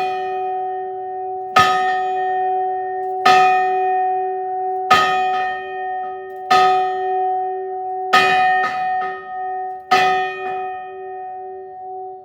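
The battleship USS Iowa's ship's bell struck slowly and evenly, six strokes about a second and a half apart. Each stroke rings on into the next, and the ringing dies away after the last stroke, about ten seconds in.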